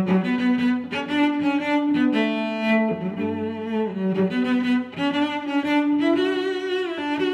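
Background music: a melody of long held notes that changes pitch every second or so.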